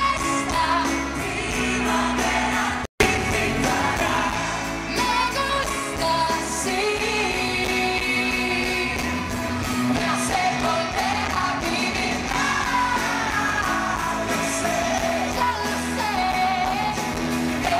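Live pop song: a female lead singer sings into a microphone over band accompaniment that includes acoustic guitar. The audio drops out for a moment about three seconds in.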